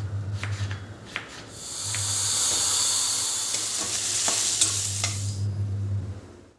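Food sizzling as it fries in a hot pan, with a few sharp knocks of a spoon stirring it. The sizzle swells about a second and a half in and fades near the end.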